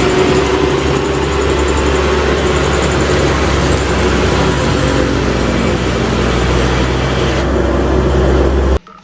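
Steady motor-vehicle engine and road noise with a strong low hum, cutting off abruptly near the end.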